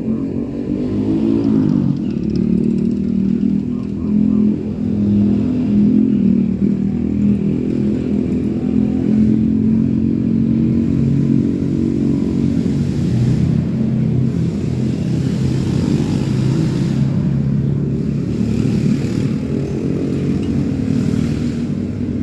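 An engine running close by, steady and loud, its pitch dropping lower about halfway through.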